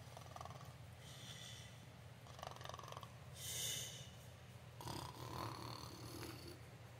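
Faint pretend snoring, a person voicing sleepers: soft snores alternate with hissing breaths out, one a little over every second, over a steady low hum.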